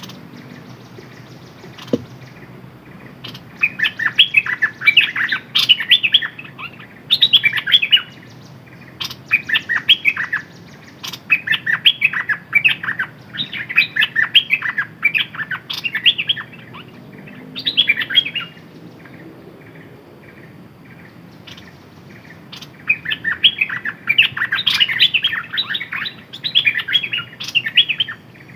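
Decoy songbird singing in repeated phrases of rapid, high chirping notes, each phrase lasting a second or two with short pauses between. There is a single sharp click about two seconds in.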